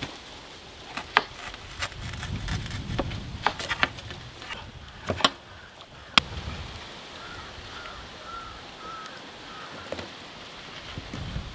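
Metal skewers clicking and knocking against a large steel tray while potatoes and raw marinated chickens are pushed onto them. About a dozen sharp knocks come in the first six seconds, followed by quieter handling.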